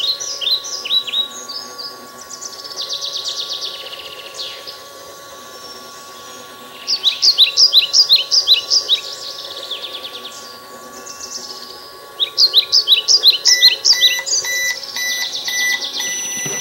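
A bird chirps in phrases of quick repeated notes over a steady electronic tone from a Just Like Home toy microwave running. About three seconds before the end, the tone gives way to a regular pattern of beeps.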